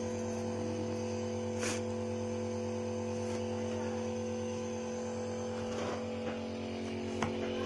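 9M compressor nebulizer running, just switched on: its small piston compressor gives a steady, even hum with several fixed tones as it pushes medicine mist through the tubing to a face mask.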